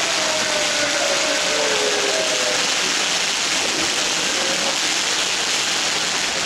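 A ground firework fountain burning with a steady loud spray of hissing sparks, with a few faint whistling tones in the first half.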